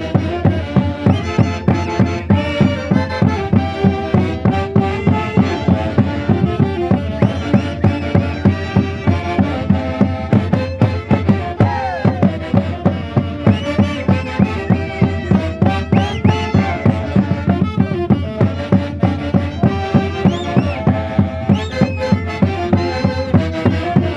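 Live Peruvian festival band music: many instruments holding melodic lines over a steady beat of about three strokes a second, with a few sliding notes.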